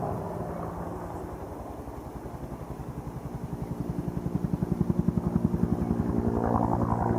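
Helicopter rotor blades beating in a fast, even rhythm of about ten beats a second, growing steadily louder as the helicopter approaches.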